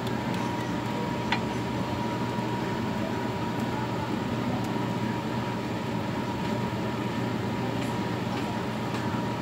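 Steady sizzle of batter pancakes (jeon) frying in oiled pans, over a steady low hum, with one light click about a second in.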